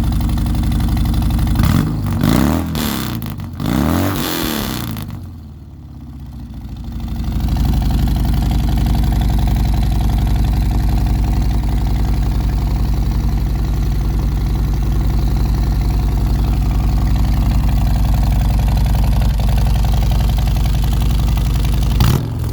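Car engine running through its stock Samson fishtail exhaust tips: revved a few times in the first five seconds, falling back, then idling steadily, with a short blip of the throttle near the end.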